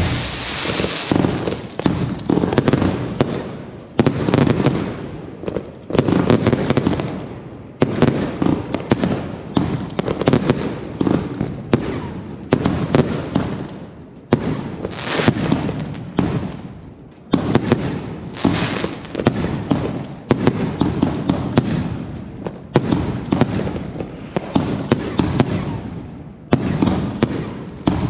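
Fireworks display: aerial shells bursting in quick succession, several sharp bangs a second overlapping one another, with a rumbling echo after each that hardly dies away before the next.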